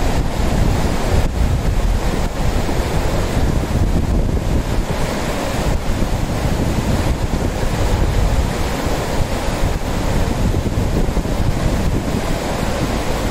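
Lidder River, a fast, shallow mountain river, rushing steadily over rocks and gravel, with wind rumbling on the microphone.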